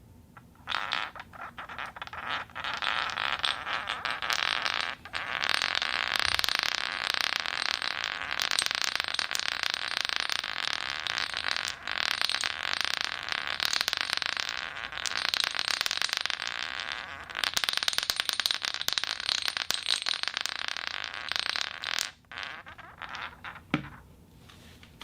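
Foley 'crystal' sound effect: a dense, continuous scraping rattle with faint steady ringing tones running through it. It comes in long passes with brief breaks about 5 and 12 seconds in, and stops about 22 seconds in.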